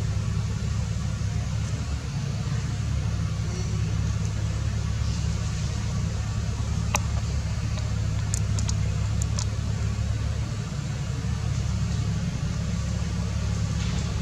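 A steady low rumbling hum with an even loudness, with a few faint sharp clicks about halfway through.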